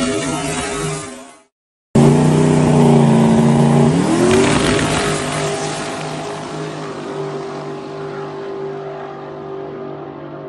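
Chevelle drag car's engine at full throttle down the drag strip, its pitch climbing, cut off abruptly about a second and a half in. After a brief silence the engine is heard again at full throttle, its pitch climbs once around four seconds in, then it holds steady and fades as the car pulls away.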